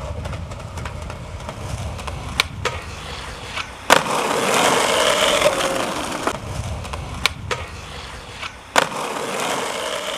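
Skateboard wheels rolling on pavement with a low rumble, broken by sharp clacks and pops of the board. The loudest clack, about four seconds in, is followed by a couple of seconds of loud scraping, like a board or trucks grinding.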